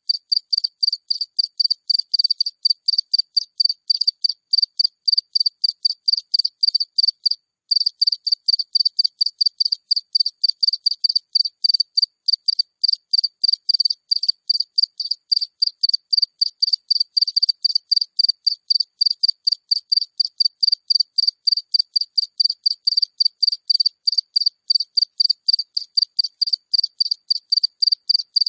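A single cricket chirping close by: a steady, even run of short high-pitched chirps, about three a second, with one brief pause about seven seconds in.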